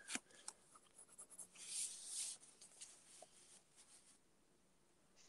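Faint scratching of a coloured pencil on paper: a couple of light taps, then a short run of strokes about two seconds in, then near silence.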